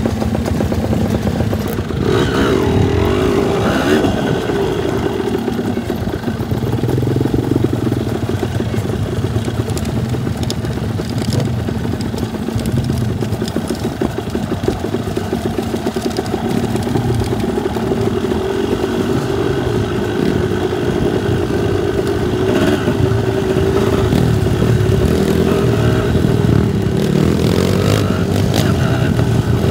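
Dirt bike engines running on the move, the revs rising and falling with the throttle.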